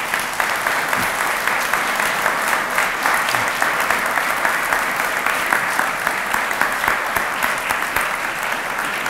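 An audience clapping in sustained, steady applause for a speaker who has just finished his talk.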